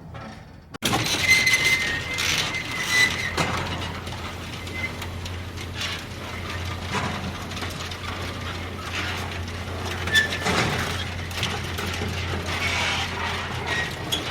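Sci-fi cartoon sound effects: a mechanical whirring and clicking that starts suddenly about a second in, with a brief high whistling tone, then runs over a steady low hum.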